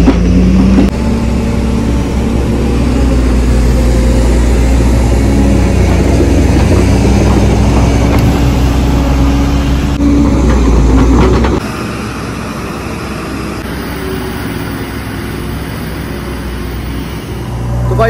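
Diesel engine of a tracked hydraulic excavator running close by, steady and loud, then dropping much quieter about two-thirds of the way through.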